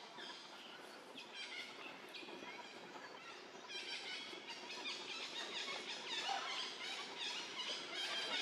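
Many short, high-pitched squealing calls overlapping one another, growing denser and louder about four seconds in.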